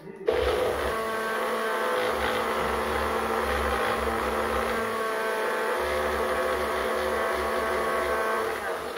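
Compact personal blender running steadily as its cup is held pressed down, grinding cabbage chutney to a paste. The motor whine starts just after the beginning and cuts off near the end.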